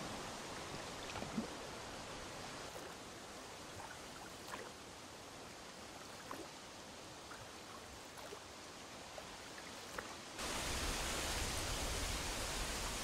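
Steady outdoor background noise, an even hiss with a few faint small clicks, which jumps abruptly louder and fuller about ten seconds in.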